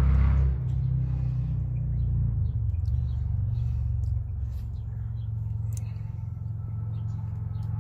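A steady low mechanical rumble throughout, with a few faint clicks and soft handling sounds from hands pulling apart a cooked chicken.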